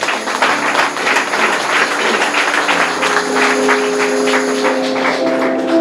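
Congregation clapping, with a keyboard holding sustained chords underneath that shift to a new chord about halfway through.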